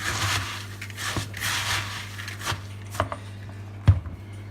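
A spoon stirring a bowl of puffed rice coated in melted shortening, giving a crunchy, rustling scrape, then a few sharp knocks, the loudest near the end.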